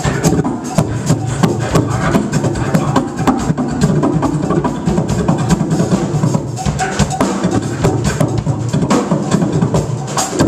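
Live band playing: a drum kit keeping a steady beat with electric bass and keyboards, loud and continuous.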